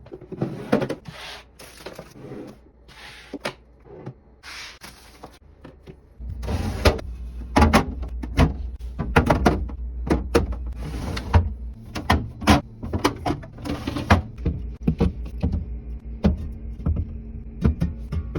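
Refrigerator being restocked: packaging rustling and items being set down on shelves and in door bins, a long run of knocks and thuds. A steady low hum joins about six seconds in.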